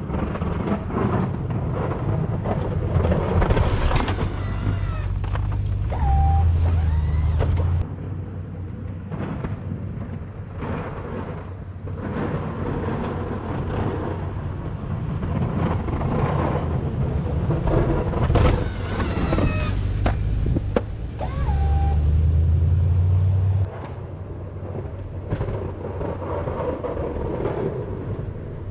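A vehicle engine running steadily, with two stretches of about two seconds each, one early and one late, where a louder low hum comes in and cuts off suddenly, and a few short rising and falling whines in between.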